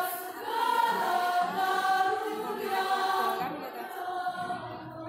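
A women's choir singing in several parts, holding long notes, growing a little softer near the end.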